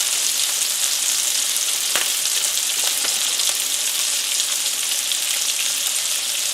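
Sliced onions sizzling steadily in hot olive oil in a frying pan, with a couple of light clicks about two and three seconds in.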